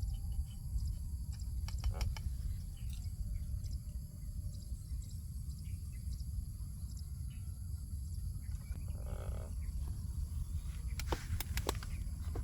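Outdoor ambience dominated by a steady low wind rumble on the microphone, with a few sharp clicks about two seconds in and a cluster of clicks near the end.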